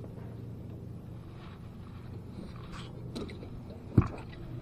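Boat motor running at a low, steady idle, with faint scuffs and one sharp knock about four seconds in.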